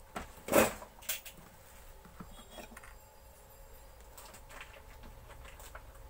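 Rummaging under a workbench for a spare motor bush: a loud knock of hard parts being moved about half a second in, a smaller knock about a second in, then faint small clicks and rattles.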